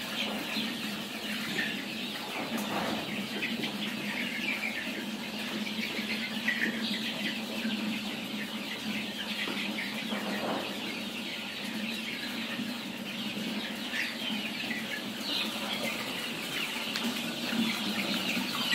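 A large flock of young nati (Indian country) chickens peeping and cheeping continuously, many short high chirps overlapping, over a steady low hum.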